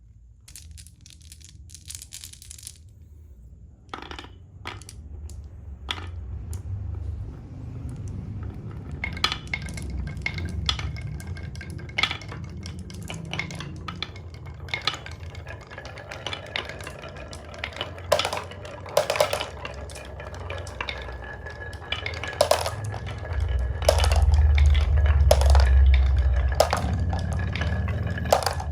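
Marbles rolling down a HABA wooden marble run: a low rolling rumble with many sharp clacks as the marbles knock against the track and each other. The clacks start sparsely and grow dense a few seconds in, and the rumble is loudest near the end.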